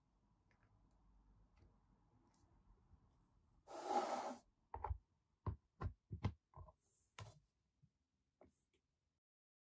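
Plastic figure parts being handled on a tabletop. About four seconds in there is a brief scraping rub, then a quick run of six or seven light plastic clicks and taps as the figure's feet are pegged onto its black plastic display base.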